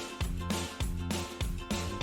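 Background music with a steady beat of about three beats a second.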